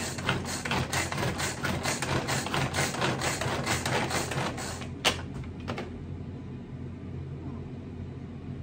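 Rapid, even chopping strokes, about four or five a second, mincing boiled cabbage and cauliflower; they stop about five seconds in after one sharper click, leaving a low steady hum.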